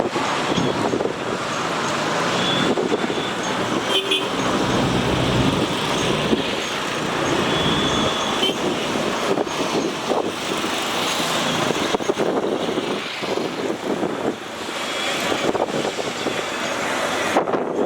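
Steady noise of a river launch and its busy surroundings, with a few short, high horn toots scattered through it.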